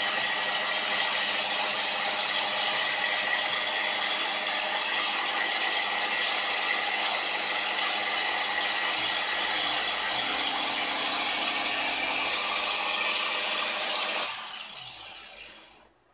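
Angle grinder with a 100 mm carbide-tipped circular saw blade, mounted on a CNC router, running at speed and cutting through aluminium plate under coolant: a steady high whine over a hiss. About 14 seconds in it is switched off, and the sound falls away over the next two seconds as the blade spins down.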